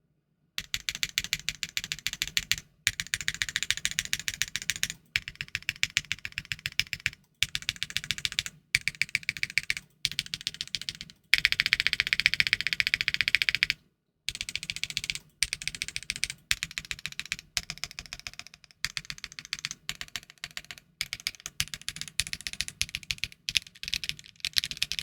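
Typing on a Luminkey 65 aluminium 65% keyboard with Gateron Sylva linear switches, built with no foam inside. Fast runs of keystrokes come in bursts of a couple of seconds with brief pauses between them.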